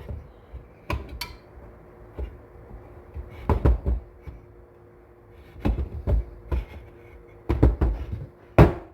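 Sharp metal-on-metal whacks in several clusters, striking to drive a stubborn main bearing off the crankshaft of a Husqvarna 266 chainsaw.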